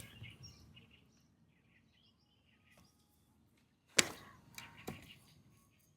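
A sharp knock about four seconds in and a weaker one just under a second later, over faint bird chirps.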